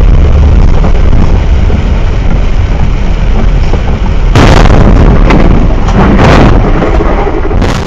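Heavy truck's cab in rain: a loud, steady rumble of engine and wet road. From about four and a half seconds in there are several loud bangs and crashes as a box truck collides with the side of the cab. The sound cuts off suddenly just before the end.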